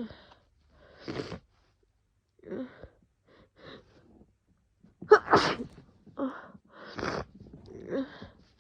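A woman with a cold sneezing, a series of short explosive bursts, the loudest about five seconds in.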